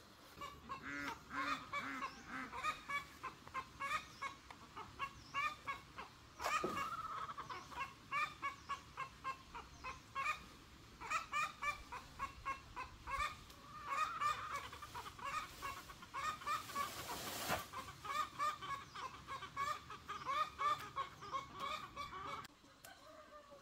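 A flock of domestic poultry calling: a dense run of short clucks and honking calls, several a second, with one louder call falling in pitch about six seconds in. The calling cuts off suddenly near the end.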